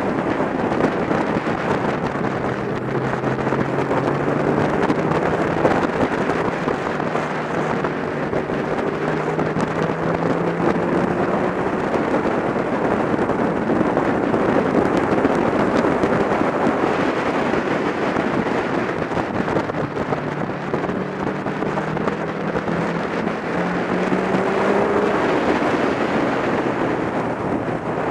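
Heavy wind rush buffeting a motorcycle-mounted microphone at road speed. Underneath it, the BMW K1300GT's inline-four engine is heard faintly, its pitch climbing a few times as it accelerates through the gears.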